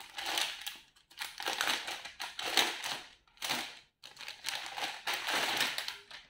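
A clear plastic garment bag crinkling in the hands as it is opened and a folded children's clothing set is pulled out, in about five bursts with short gaps between them.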